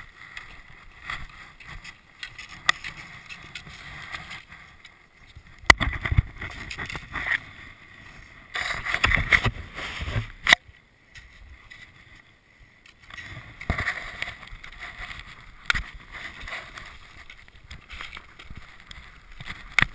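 Cross-country skis sliding and swishing over snow in uneven strides, with scattered sharp clicks and knocks. A louder stretch of scraping comes about six to ten seconds in.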